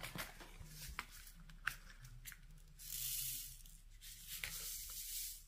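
Small plastic diamond-painting drill containers being handled: a few light clicks and soft rustling.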